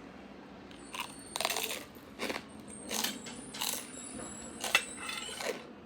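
Close-miked eating sounds: a series of about seven short crunching and sucking bites as the meat and marrow are eaten off an air-fried beef marrow bone.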